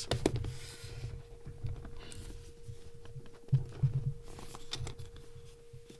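Fingertips pressing, rubbing and picking at the lid of a cardboard lens box, trying to work it open: irregular low bumps and thumps with a few sharp clicks and brief scratchy scraping, over a steady faint hum.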